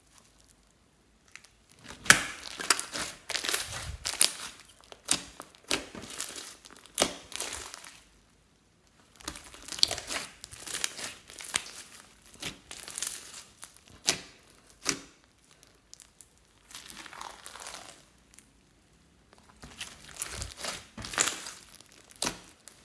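Hands kneading and squeezing a large mass of slime mixed with foam beads: crackling, squishing and popping sounds in spells of a few seconds, with short pauses between.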